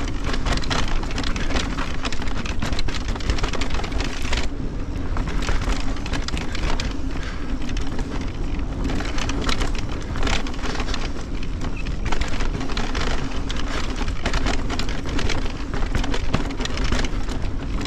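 Fezzari Timp Peak electric mountain bike descending a dirt trail: continuous wind buffeting and tyre rumble on dirt and rock, broken by frequent rattles and knocks from the bike over the bumps, with a steady low hum underneath.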